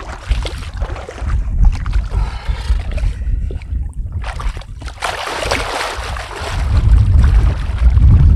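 Wind buffeting the microphone aboard a small boat, an uneven low rumble that grows louder near the end, with scattered knocks and a brief rush of noise about five seconds in.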